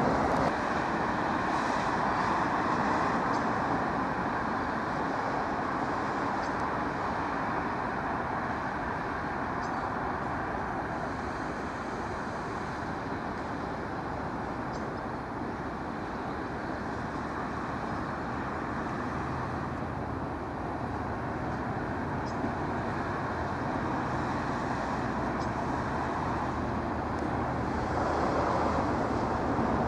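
Class 68 diesel-electric locomotive approaching slowly with its train. Its engine runs steadily and gets louder near the end as it draws into the platform.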